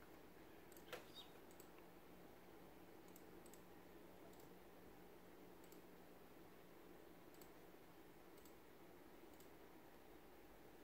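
Near silence: faint room tone with a soft click about a second in and a few faint ticks scattered after it.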